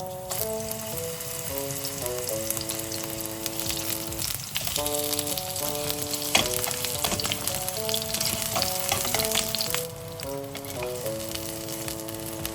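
Skewered onions frying in hot oil, a dense crackling sizzle that starts as they go in and eases off a little near the end. Background music plays under it.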